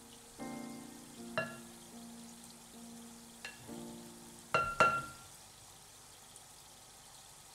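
Cheese balls deep-frying in hot oil, a faint steady sizzle and bubbling. A few sharp clinks ring out over it, the loudest two close together about four and a half seconds in, with soft background music holding sustained tones underneath.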